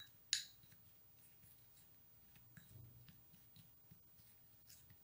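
Faint scraping and light clicking of a small plastic spoon stirring dry powders in a small glass bowl, with one sharper tap against the glass about a third of a second in.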